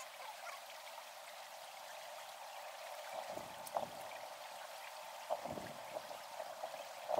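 Faint, steady outdoor hiss with a sharp click about halfway through and a few soft, low thumps after it.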